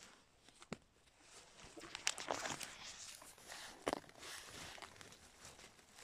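Dry leaf litter and twigs rustling and crackling as dogs push and dig through the undergrowth, with a few sharp twig snaps, the loudest about two and four seconds in.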